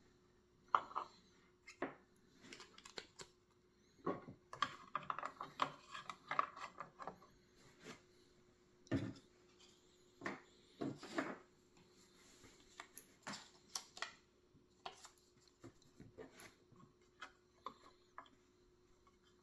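Puzzle-box parts and small pieces being handled by hand: scattered clicks, taps and light knocks, with a brief run of rattling clatter about four to seven seconds in.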